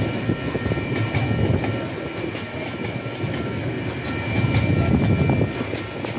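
Freight train hopper wagons rolling past close by: a steady rumble of steel wheels on the rails, with clicks as the wheels cross joints and a faint steady high whine, swelling a little near the end.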